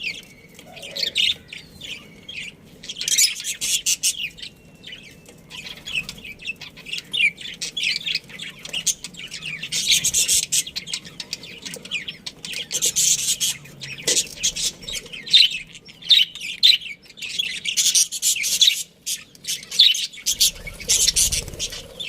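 Budgerigars (budgies) chirping and chattering together, many quick high chirps overlapping in busy clusters with a few short lulls.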